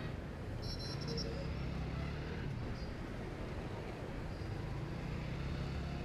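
Two-wheeler engine running with steady road and traffic rumble while riding through city traffic, with a short high beep about a second in.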